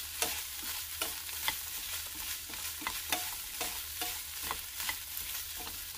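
Zucchini slices and minced pork sizzling in a hot frying pan as they are stir-fried with wooden chopsticks. The chopsticks click against the pan about twice a second over a steady hiss.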